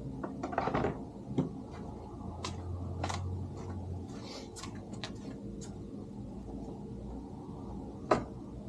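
Plastic fender flare pieces being handled and set against a UTV's body panels: a few scattered clicks and knocks, the sharpest about eight seconds in.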